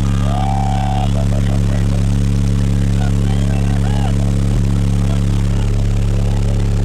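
Twelve 12-inch Sundown ZV4 car subwoofers holding one steady, very loud, deep bass tone, with audible distortion from the sheer bass level.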